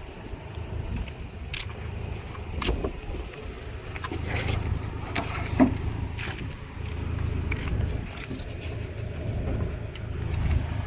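A vehicle engine idling with a steady low rumble, under scattered sharp knocks and rattles as the folding metal boat dolly and its strap are handled.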